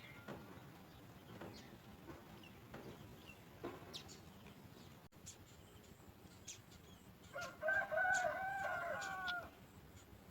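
A rooster crows once, a wavering call lasting about two seconds, starting about seven seconds in. Before it, only faint, scattered high chirps and ticks.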